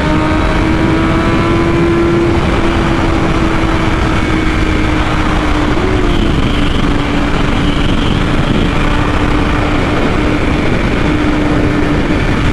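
BMW S1000RR sport bike's inline-four engine cruising at highway speed, its note holding nearly steady, under heavy wind rush on the rider's microphone.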